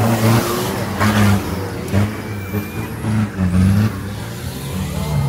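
Off-road 4x4 engine revving in repeated surges, rising and falling about once a second, with bursts of rougher noise in the first second or so.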